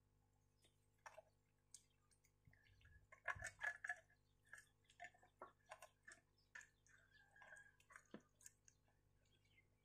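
Near silence with faint, scattered soft ticks and taps from hands rubbing seasoning into a whole raw duck and handling it.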